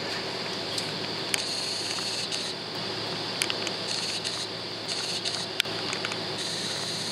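Jet airliner cabin noise while taxiing: a steady hum and hiss of the engines and cabin air, with several sharp clicks and rattles.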